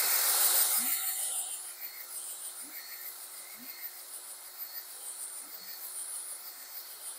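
Cordless drill on slow speed turning the oil pump of a Ford 200 cu in inline-six through the distributor hole, priming the oiling system: a steady high whir and hiss, loudest in the first second and then settling, with a few faint ticks.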